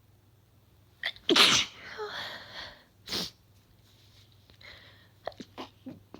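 A woman sneezing. There is a quick intake, then one loud sneeze about a second and a half in that trails off noisily, then a second, shorter burst about three seconds in. Several brief sharp sounds follow near the end.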